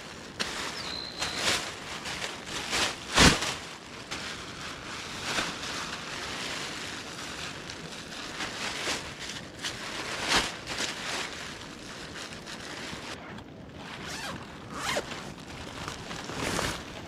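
Thin plastic raincoat rustling and crinkling as it is unfolded and pulled on, with irregular sharp crackles, the loudest about three seconds in.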